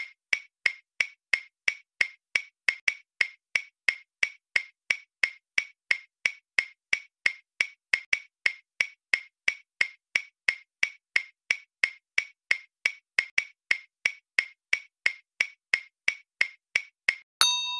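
Countdown timer effect: a clock ticking evenly, about three ticks a second. Near the end a single bell ding marks time up and rings on.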